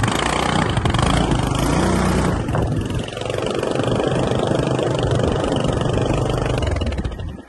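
A motor vehicle's engine running steadily, heard from a vehicle on the move. The engine note shifts in steps, and the sound cuts off abruptly at the end.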